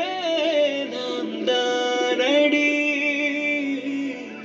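A Tamil film song, a singing voice holding long notes over the backing, played from a phone through an AWEI Y330 portable Bluetooth speaker. The song grows quieter near the end.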